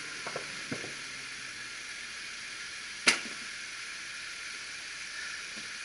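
A steady high hiss, with a few faint knocks in the first second and one sharp click about three seconds in.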